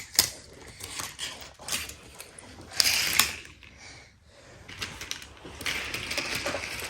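Plastic toy playset and die-cast toy cars being handled: irregular clicking, ratcheting and rattling of small plastic and metal parts, with a louder burst of rattling about three seconds in and again near the end.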